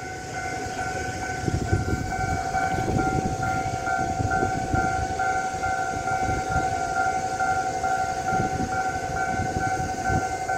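Railway level-crossing warning alarm sounding: a steady electronic tone with a higher tone pulsing rapidly over it, the signal that a train is approaching and the barriers are down.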